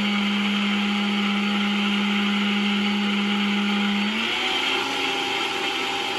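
Vitamix blender motor running steadily, churning a thick mixture of raw bone marrow, eggs, banana and frozen blueberries. About four seconds in its pitch steps up a little as the speed dial is turned.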